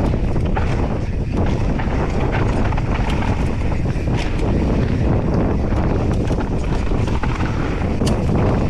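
Wind buffeting the camera microphone of a mountain bike riding fast down a dirt trail. Tyres roll over the ground and the bike rattles in scattered sharp clicks.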